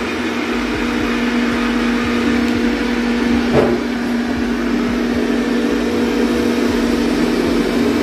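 Xiaomi Mijia G1 robot vacuum running at maximum suction power: a steady low motor hum over the rushing of its fan.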